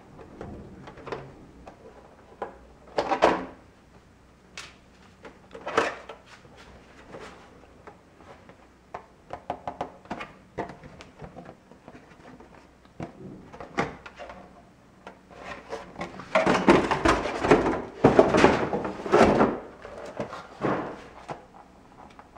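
Handling noises from a radio-controlled short course truck and its plastic body shell being taken off and turned over: scattered clicks and knocks, with a louder bout of clattering and rustling about three-quarters of the way through.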